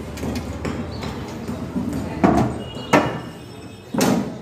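Sharp knocks and clanks as an oil-filled distribution transformer is shoved across a truck bed on planks and a metal pipe during unloading. There are three hard knocks in the second half, over a steady low background rumble.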